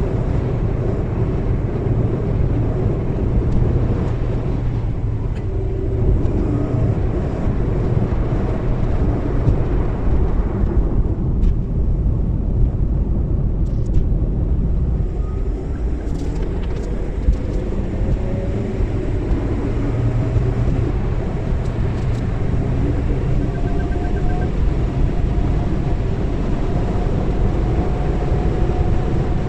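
Car driving on a highway, heard from inside the cabin: a steady low rumble of engine and tyres, with a faint whine rising in pitch in the second half.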